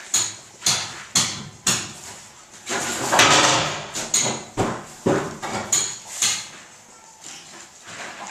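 Mother dog licking and cleaning her newborn puppies just after giving birth: short, wet licking strokes about twice a second, with a longer, louder stretch about three seconds in.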